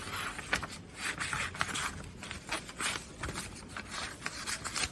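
Scissors cutting pattern pieces out of a sheet of paper: an irregular run of snips, with the paper rustling and scraping as it is turned.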